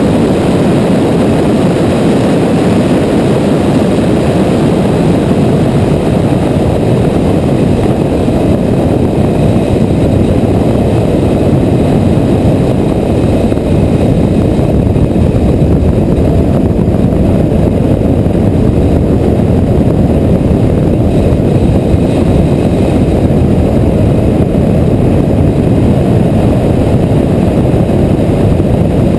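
Onboard sound of a Porsche GT3 at speed on a race track: loud, steady engine noise mixed with heavy rushing wind and road noise on the exterior camera mount.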